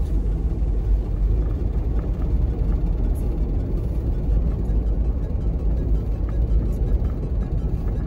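Steady low rumble of a Force Gurkha 4x4's engine and tyres as it drives along a snow-covered road.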